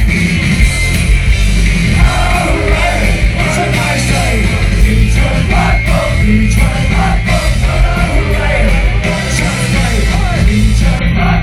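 Rock band playing live, loud and bass-heavy, with a lead vocal coming in about two seconds in.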